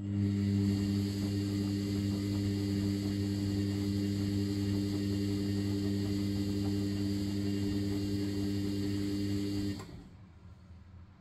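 Sharp (Vestel) ES-GFB7145W washing machine turning its drum in the main wash of a 90° boil wash: the motor starts abruptly with a steady hum and the wash water sloshes, then the motor cuts off about ten seconds in, ending one tumble.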